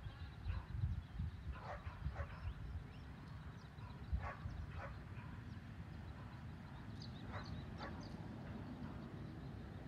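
A dog barking in short pairs of barks, repeating every few seconds, over a low steady rumble.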